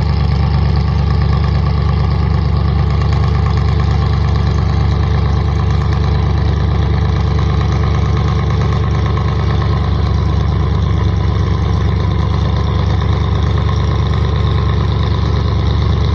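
A boat's engine running steadily, a loud, even low hum that holds constant throughout.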